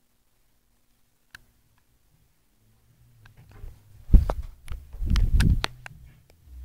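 Handling noise of a handheld phone: a single faint click, then low rubbing and dull thumps against the microphone, a loud bump about four seconds in and another cluster about a second later.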